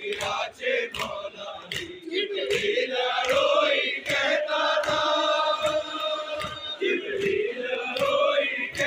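A group of men chanting a mourning noha in unison while beating their chests (matam), the hand slaps landing in a steady rhythm about three times a second. The chanting becomes a sustained, louder sung line from about halfway through.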